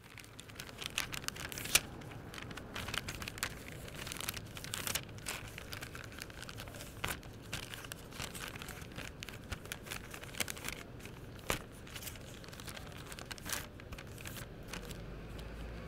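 Sharpie felt-tip marker drawing and writing on paper: a continuous run of short scratchy strokes of the tip across the sheet, with sharper squeaks here and there.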